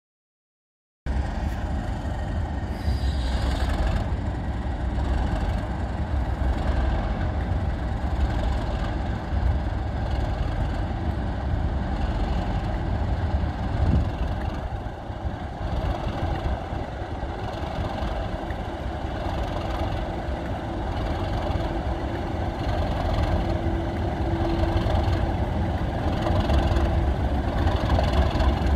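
Class 37 diesel locomotive's English Electric V12 engine running as it slowly pulls a test train away along the platform, with a steady low rumble that grows a little louder as it draws nearer. The sound begins about a second in.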